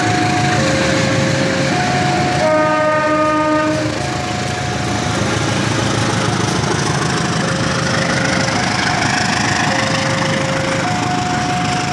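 Railway level-crossing warning alarm sounding a steady two-tone alternation, high and low notes about a second each, while a diesel locomotive and its passenger coaches roll past with steady wheel and rail noise. About two and a half seconds in, the locomotive's horn sounds once for about a second and a half.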